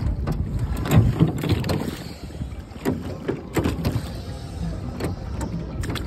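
Wooden rowboat being rowed: oars dipping and splashing in the water, with irregular knocks from the oars working in their oarlocks, over a low rumble.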